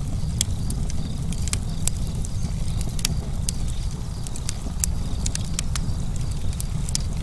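Burning wood crackling, with sharp irregular pops a few times a second over a steady low rumble.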